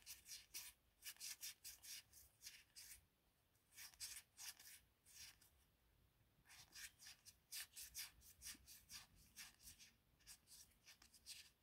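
Faint, quick swishes of glossy football trading cards sliding off one another as a stack is thumbed through by hand, one card after another, with a short lull near the middle.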